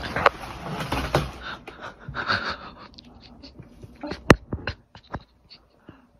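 Crinkly rustling of a plastic snack bag and its cardboard box as a cat noses and paws at it. Scattered small clicks follow, with one sharp click about four seconds in.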